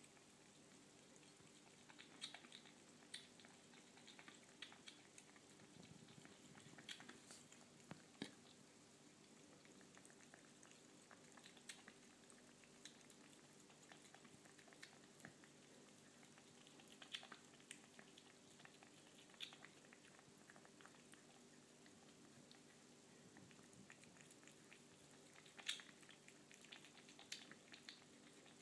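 British Shorthair kitten lapping milk from a stainless steel bowl: faint, irregular wet clicks in short runs over a low steady hum.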